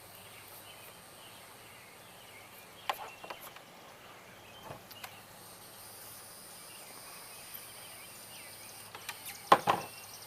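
Wire stripper clicking as it clamps and strips insulation off electrical wire. A few sharp clicks come about three seconds in and a louder pair near the end.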